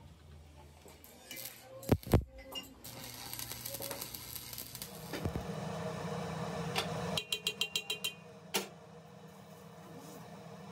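Lathe workshop noise around a welded drive shaft tube: two sharp metal knocks about two seconds in, then a steady hum. About seven seconds in comes a quick run of about eight even clicks, and a single knock follows.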